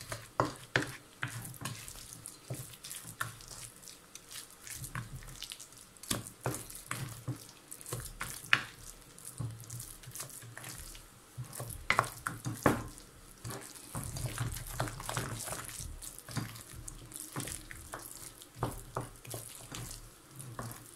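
Wooden spoon stirring a thick, wet sweet potato and almond filling in a glass bowl: irregular squelching and scraping, with sharp taps of the spoon against the glass.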